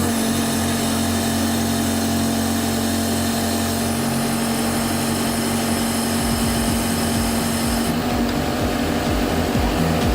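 Pile driver machine's engine running at a steady pitch, with its higher tones dropping away about eight seconds in.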